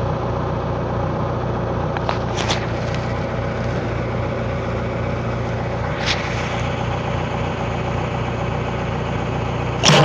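Backhoe engine running steadily, with a few faint clicks. Near the end, a single loud, sharp knock as the bucket tooth comes down on a hard drive.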